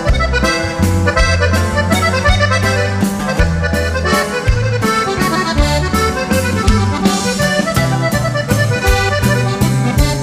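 Norteño band playing an instrumental break: button accordion carrying the melody over a bass line and a steady beat, with no singing.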